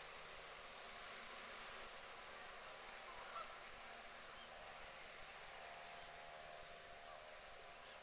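Faint outdoor hiss with faint, distant waterbird calls, a drawn-out pitched call in the middle and a few brief ones.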